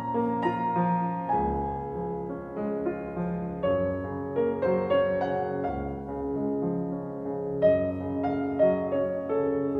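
Background music: a gentle piano piece, notes and chords played at an unhurried pace.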